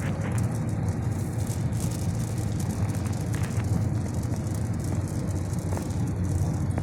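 Hail pelting the roof and windshield of a moving car, heard from inside the cabin: a dense, irregular patter of ticks over the steady low rumble of the car driving.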